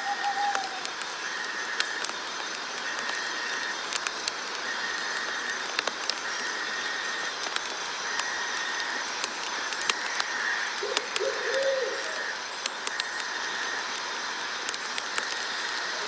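Night-time nature ambience: a steady chorus of night creatures pulsing in roughly one-second bursts over a soft hiss, with scattered clicks. A short low call comes at the start and again about eleven seconds in.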